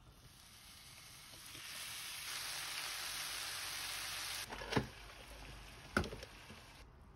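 Spicy marinated duck and onions sizzling as they stir-fry in hot oil in a nonstick frying pan; the sizzle builds over the first two seconds and holds steady. About four and a half seconds in it drops away, and two sharp clicks follow about a second apart.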